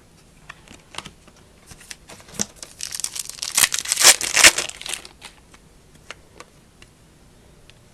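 Foil trading-card pack wrapper crinkling as it is handled and torn, with a dense crackle for about two seconds in the middle and scattered light clicks before and after.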